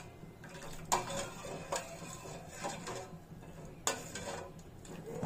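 A steel spoon stirring custard in a stainless steel bowl, clinking against the bowl's side about once a second, sharpest about a second in and near four seconds.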